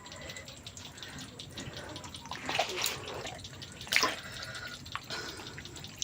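Water splashing and sloshing, with a few louder splashes about two and a half to three seconds in and again at about four seconds.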